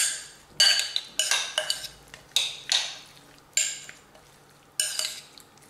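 Metal spoon stirring pecans in a ceramic mixing bowl: about six sharp clinks of spoon against bowl at irregular intervals, each ringing briefly, with a quieter gap shortly after the middle.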